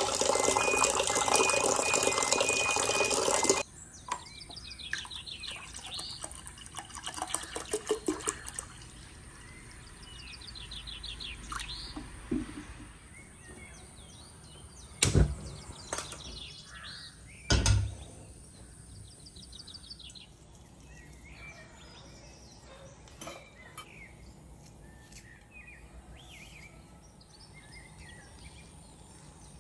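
Tap water running into a steel saucepan, cutting off suddenly after about three and a half seconds. Birds chirp in the background, then come two sharp clicks about two and a half seconds apart as a gas stove lighter sparks the burner.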